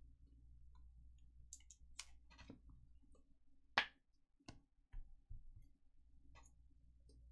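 Faint, scattered clicks and taps of trading cards being handled and set down on a pile on the table mat, the loudest a little under four seconds in, over a low steady hum.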